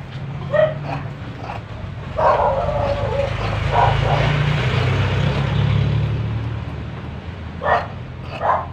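A dog barking in short barks several times, with a burst of barks about two seconds in and more near the end. Under it runs a low engine hum that swells and fades in the middle, as a vehicle passes.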